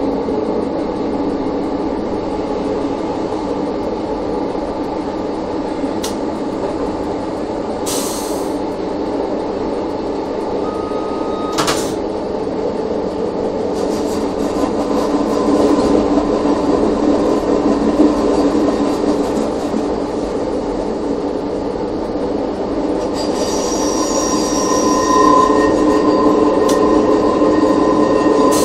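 Electric railcar ABe 4/4 641 heard from its driver's cab, running steadily with a constant hum over the wheels on the rails, and a couple of sharp clicks partway through. Near the end, high-pitched wheel squeal sets in as it rounds a curve.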